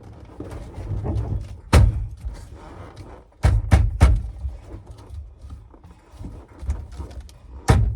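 Dull thunks as a stuck steering wheel is yanked and jerked loose from the NC MX-5's steering column shaft, its loosened nut left on: one sharp knock about two seconds in, a cluster of knocks around three and a half to four seconds, and another near the end.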